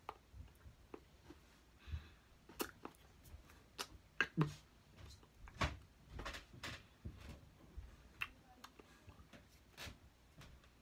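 Hands tapping, clapping lightly and brushing against each other and the shirt during sign language: a quiet, irregular string of short taps and clicks.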